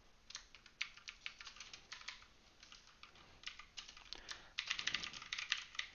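Typing on a computer keyboard: irregular keystroke clicks that come faster in the second half.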